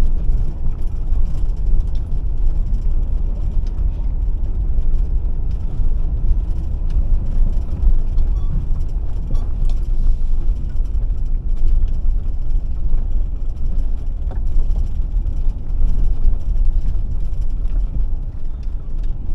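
Steady low rumble of a car driving slowly, heard from inside the cabin: engine and tyre noise, with a few faint clicks.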